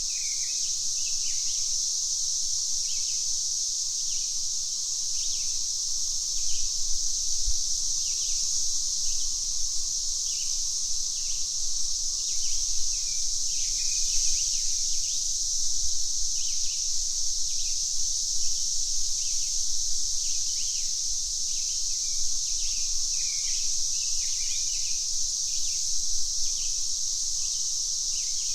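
Steady high-pitched drone of cicadas, with birds chirping briefly and often over it.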